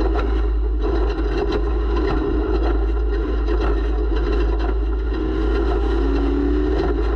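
Off-road race vehicle's engine running hard at steady high revs, its pitch wavering and settling a little lower near the end. A heavy low rumble of wind on the microphone and frequent short knocks and rattles from the chassis over rough ground run underneath.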